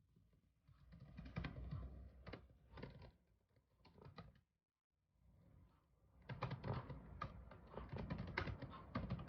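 Typing on a computer keyboard: quick runs of keystrokes, with a short pause about halfway through.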